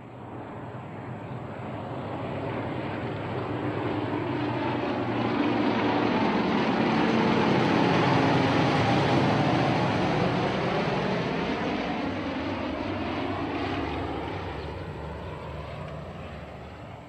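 Propeller aircraft flying past. Its engine sound builds to its loudest about eight seconds in, then fades away as the pitch drops.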